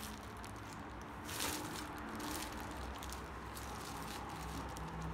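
Quiet handling noise from a plastic-gloved hand turning two old steel knife blades, with a brief rustle about a second and a half in, over a faint steady background hum.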